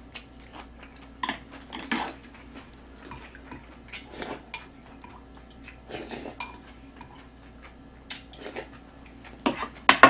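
Chopsticks and a spoon clinking and scraping against a pot and plates during eating, in short separate knocks and scrapes with a louder cluster near the end. Close-up mouth sounds of chewing come between them.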